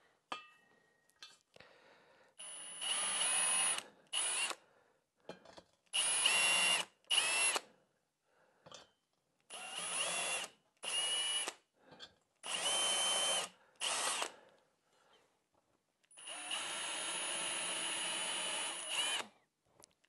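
Cordless drill run in about eight short bursts, several in pairs, then held in one steady run of about three seconds near the end. It is drilling pilot holes and driving screws through a steel table leg's mounting plate into wood.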